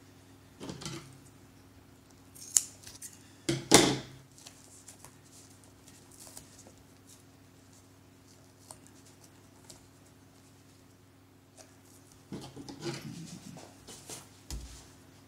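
Scissors snipping notches into a vinyl adhesive repair patch, a few short sharp cuts in the first four seconds. Then soft rustling as the vinyl is handled, and a dull thump near the end.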